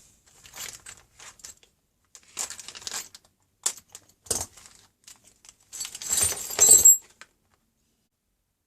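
A metal pocket hole jig being handled: scattered clicks and clinks, a knock as it is set down about four and a half seconds in, then a longer metallic rattle near the end, the loudest part.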